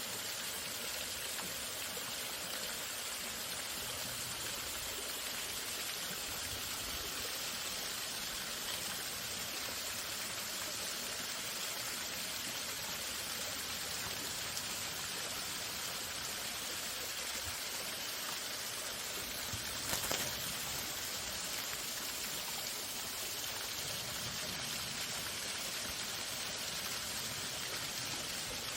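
Waterfall: a steady, even rush of falling water with no break, and a single short tap about twenty seconds in.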